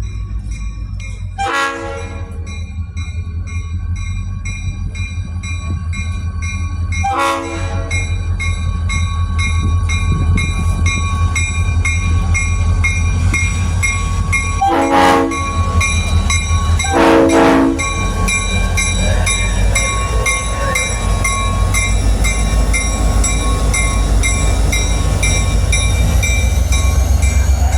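Diesel train rumbling close by, growing louder, with a bell ringing steadily and four short horn blasts: one near the start, one about a quarter of the way in, and two close together past the middle.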